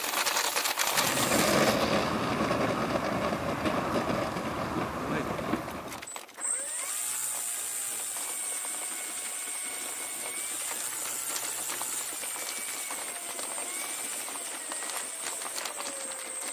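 Onboard sound of a radio-controlled P-47 Thunderbolt model rolling over dry grass: a dense rushing rattle of wheels, grass and air. About six seconds in it breaks off to a quieter run along the paved runway, with a steady high whine and faint wavering tones.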